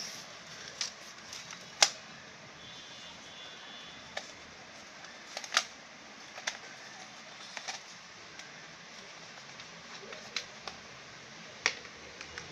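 Scattered sharp clicks and taps over a faint background hiss, from handling a toy RC car's cardboard box insert and its small plastic parts.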